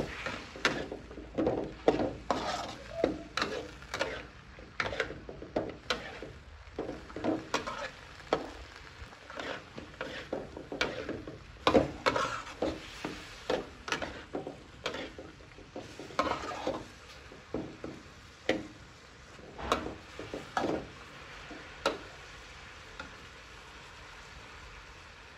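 Metal spatula scraping and turning pork ribs in a metal wok, with light sizzling underneath as the sauce cooks down. The strokes come about once or twice a second and thin out and stop near the end.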